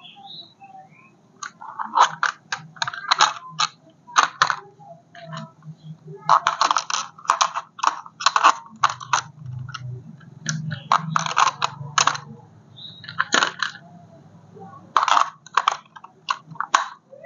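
Packaging and parts of a remote-control toy car being handled and unpacked: irregular crinkles, clicks and rattles in quick clusters.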